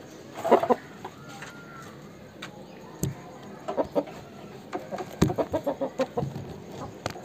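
Aseel chickens clucking: a loud call about half a second in, then runs of short, quick clucks later on. A couple of sharp clicks are mixed in.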